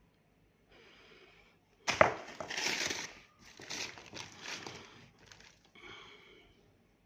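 Handling noise: a sharp knock about two seconds in, then crinkling and rustling for about three seconds, with fainter rustles before and after.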